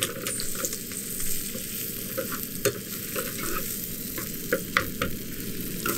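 Chicken eggs and trout roe sizzling steadily in a frying pan on a camp stove, with a metal spatula scraping and clicking against the pan several times.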